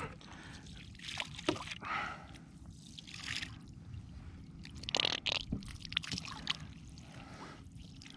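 Landing net splashing and sloshing in the water alongside a kayak as a hooked octopus is scooped up, with water dripping off the net as it lifts, and a few light knocks. The loudest splashing comes about five seconds in.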